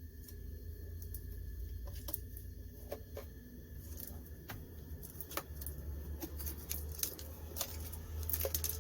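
Jackery 290 portable power station making irregular clicks and ticks over a steady low hum. The owner doubts a Jackery is supposed to make this sound; the unit has loose buttons and a detached motherboard.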